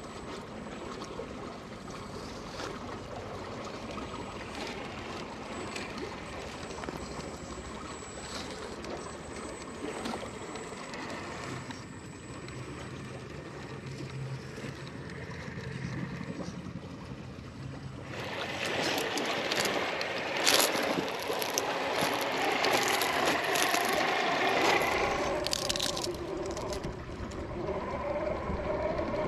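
Vanquish VS4-10 Phoenix RC rock crawler working its way over sandstone rocks, with a river running in the background. Past the middle the sound gets louder and busier, with many sharp clicks and scrapes from the tyres and chassis on rock.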